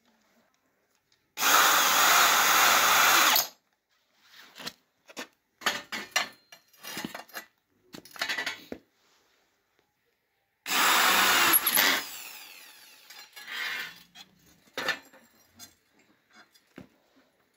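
Cordless drill driving screws into crossed square steel tubing: two runs, the first about two seconds long and the second just over a second and trailing off. Short knocks and clinks of the metal tubes being handled come between and after.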